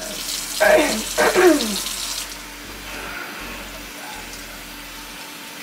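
Kitchen faucet running, its stream splashing onto hair and a stainless steel sink as conditioner is rinsed out. Two short squeals falling in pitch come about a second in.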